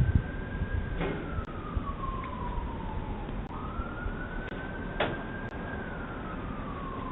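Emergency-vehicle siren sounding a slow wail: each cycle rises, holds, then sinks slowly, and repeats about every four and a half seconds. Two sharp clicks come about a second in and again near the middle.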